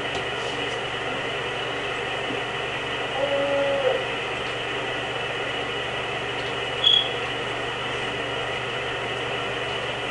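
Steady background hiss, with a short pitched vocal sound from a sleeper about three seconds in, held then rising at its end, and a brief high squeak about seven seconds in.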